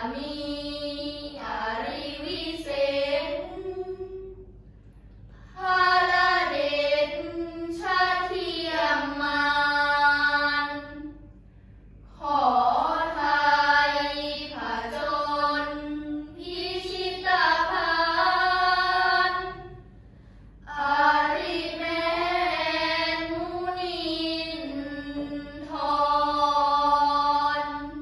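A group of girls chanting a Thai Buddhist prayer in unison, in a sung, melodic recitation. The chant comes in four long phrases of several seconds each, with brief pauses for breath between them.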